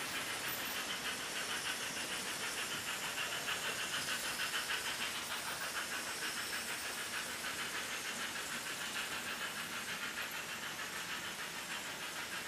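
HO-scale model trains running on the layout's track: a steady, fast, fine rattle of small wheels on the rails, with hiss.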